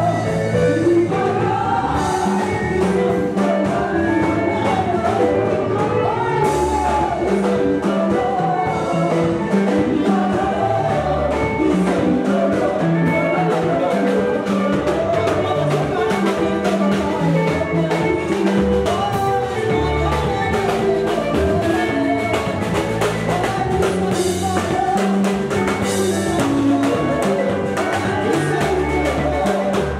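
Music: a song with several singing voices over a steady percussive beat.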